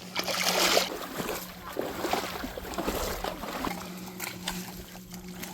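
Water splashing and lapping in uneven bursts.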